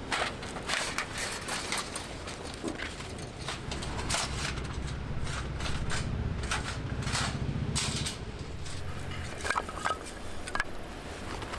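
Firewood crackling and snapping in irregular sharp pops, with a low steady hum in the middle few seconds.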